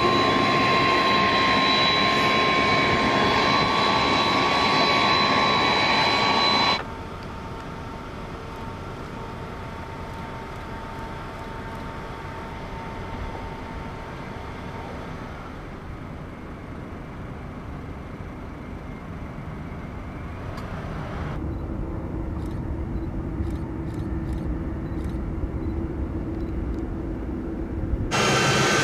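A KC-10 Extender's jet engines whine loudly at close range as it taxis, with steady high-pitched tones. About seven seconds in the sound cuts to the quieter, distant noise of a KC-10 taking off, later to a distant C-17 Globemaster's engines with a low steady hum, and near the end to the loud, close whine of a C-17's engines.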